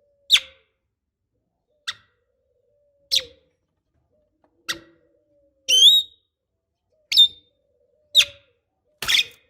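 Javan myna giving a series of short, sharp calls, about one a second, with one longer wavering call about halfway through.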